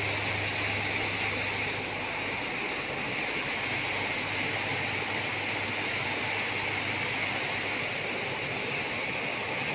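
Steady machine hum and hiss, a constant low electrical hum under an even hiss, with no change throughout.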